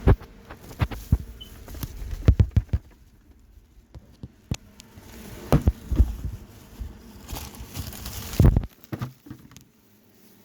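Irregular clinks and knocks of kitchen cookware and utensils being handled.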